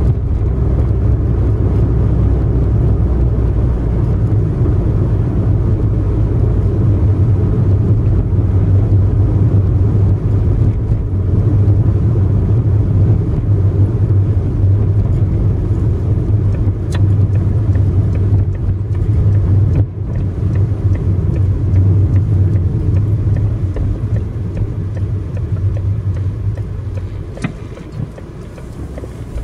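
Car engine and tyre noise from inside the cabin while driving at a steady speed, a continuous low rumble that grows quieter near the end.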